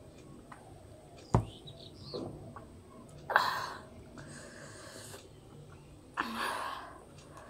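Close-miked mouth sounds of someone licking and sucking curry off her fingers: two wet slurps about three seconds apart. A single sharp knock comes about a second and a half in.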